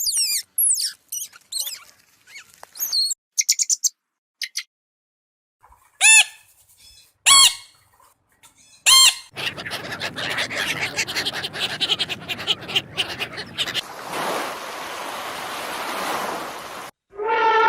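A sequence of animal sounds: birds chirping quickly, then three loud, short, shrill calls, a long stretch of noisy rustling, and a long wavering call starting near the end.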